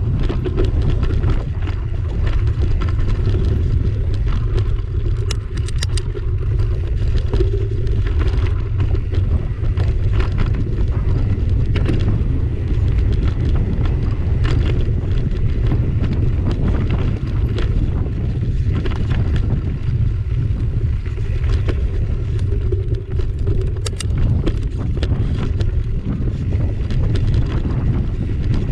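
Mountain bike rolling fast down a dry, stony dirt singletrack, heard through a handlebar-mounted camera: a loud, steady low rumble of wind and tyre on the trail, with frequent clicks and knocks from stones and the rattling bike.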